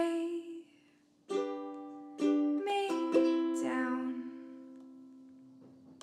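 Ukulele strumming the song's closing chords: a short gap, three separate strums, and the final chord left ringing and slowly dying away.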